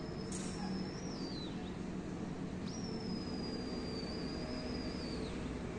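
A high, thin whistle held on one pitch and sliding down at its end, heard twice (the second lasts about two and a half seconds), over a steady low outdoor rumble.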